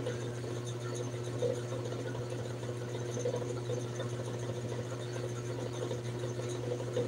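Steady low hum of a small motor running.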